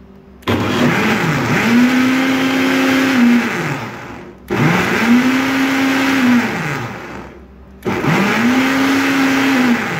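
Electric blender run in three short pulses, mixing a liquid crêpe batter of milk, eggs, oil and sugar. Each time the motor spins up, holds a steady whine for a few seconds and winds down.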